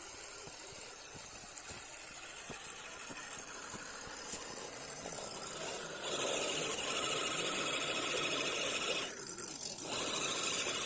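Electric RC crawler's motor and gearbox whining with a light gear rattle. It gets louder about six seconds in, stops for a moment near the end, then starts again.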